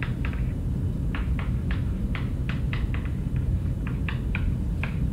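Chalk tapping and scratching on a blackboard as a sentence is written: short, irregular clicks, a few a second, over a steady low rumble.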